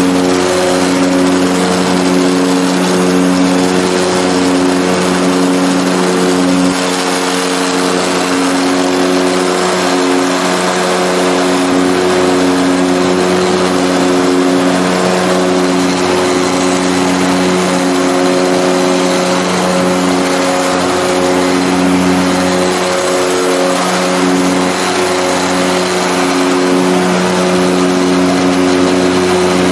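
Cockpit drone of a CAL FIRE OV-10 Bronco air attack plane's twin turboprop engines and propellers in cruise, heard from inside the canopy: a loud, steady hum with a slow, regular pulsing over a rushing hiss.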